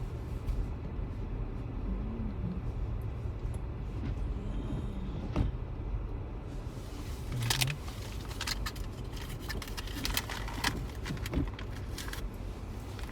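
Car driving through snow, heard from inside the cabin: a steady low road and engine rumble with scattered sharp clicks and ticks, mostly in the second half.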